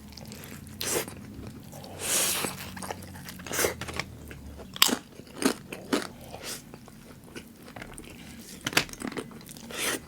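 Close-miked biting and chewing of crunchy food: a string of irregular crisp crunches, with a longer crackly chew about two seconds in.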